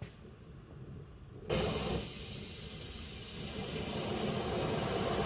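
Handheld gas torch lit, about a second and a half in, and burning with a steady hiss as it heats the brake caliper around a seized slide pin to free it.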